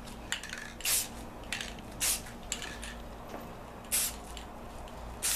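Aerosol spray paint can fired in short hisses, about half a dozen quick sprays spaced irregularly, as paint is dusted over a grass template onto a shotgun stock.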